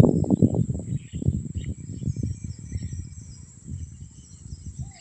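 Outdoor ambience: a steady high drone of crickets or similar insects, with a few faint bird chirps. Under it runs an uneven low rumble, like wind buffeting the microphone, loudest at the start and fading away.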